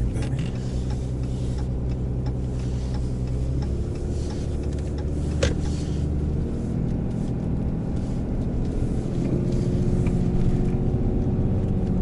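2019 Ram 2500's Cummins 6.7-litre straight-six turbodiesel running under load while towing a gooseneck trailer. Its note shifts pitch a few seconds in and grows louder toward the end. A single sharp click about five and a half seconds in.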